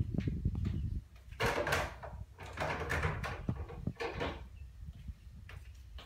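Carrier split-type air conditioner indoor unit's blower fan, switched off from high speed about a second in and spinning down, its air noise dying away. A few short noises sound over it in the middle.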